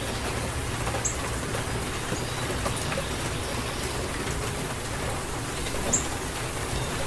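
Steady rain falling, with a low rumble underneath and scattered individual drops ticking. Two brief high bird chirps come through, about a second in and again near the end.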